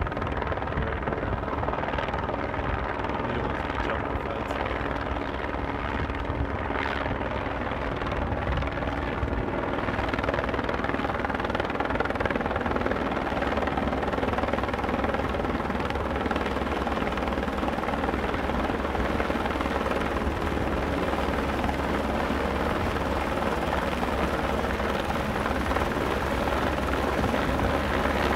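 Airbus AS350 AStar air-ambulance helicopter flying low and coming in to land: a steady rotor beat with engine whine, growing a little louder as it comes closer.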